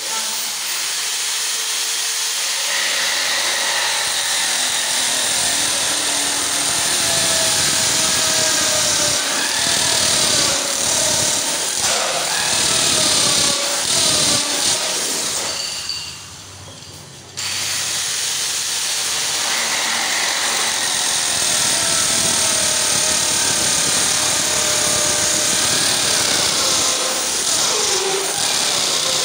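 Corded electric drill driving a 2½-inch hole saw through PVC pipe. The motor runs steadily, its pitch sagging and recovering as the saw cuts. It stops for about a second and a half a little past halfway, then starts cutting again.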